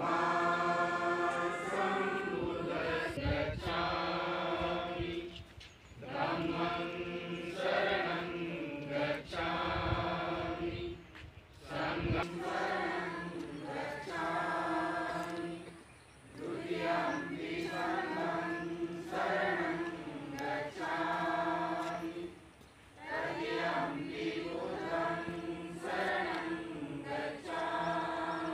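A large group chanting a Buddhist devotional chant in unison, held on a steady pitch in long phrases of several seconds with short pauses between them.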